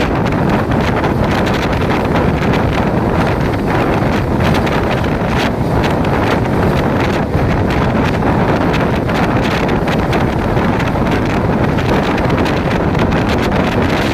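Steady, loud wind noise buffeting the microphone.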